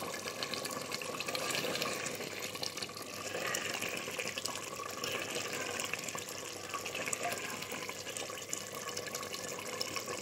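Mutton curry sizzling in oil in a clay pot while being stirred with a wooden spoon: a steady hiss with faint scattered clicks. The meat is at the frying (bhunai) stage with its masala.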